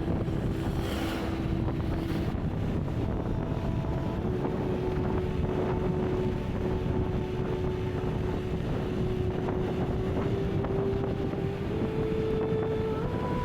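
Yamaha NMAX 125 scooter's single-cylinder engine and drive running steadily under riding wind noise on the microphone, its note stepping up in pitch near the end.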